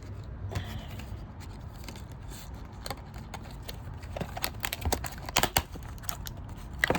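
Brittle plastic blister pack being broken open by hand, cracking and snapping in sharp irregular crackles that come thicker and louder in the second half.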